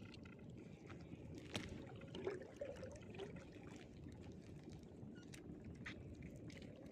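Faint water trickling and splashing with scattered small clicks and knocks, as a wet fishing net is pulled up and handled in shallow field water.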